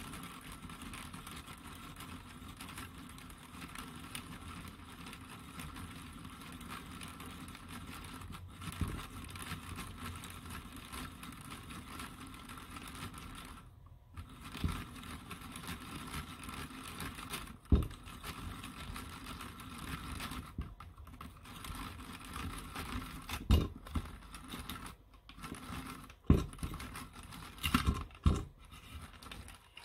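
3D-printed plastic eggbeater hand drill cranked steadily, its plastic gear teeth clattering as the 4 mm bit bores into a 3/4-inch wooden board. In the second half the cranking pauses briefly a few times, with several sharp knocks, and it stops at the very end.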